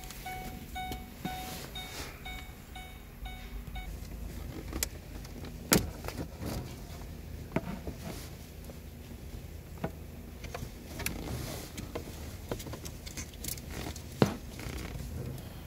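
Scattered clicks and knocks of hands and tools working under a Ford Expedition's dashboard, fitting a body control (smart junction box) module into place, the two sharpest knocks about six and fourteen seconds in. A faint rapid beeping sounds in the first few seconds.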